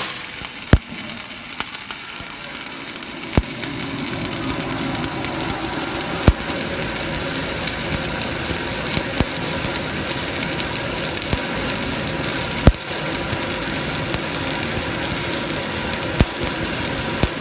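Stick-welding arc burning steadily as a weld pass is laid with a coated electrode: a continuous crackling sizzle with a handful of sharp pops.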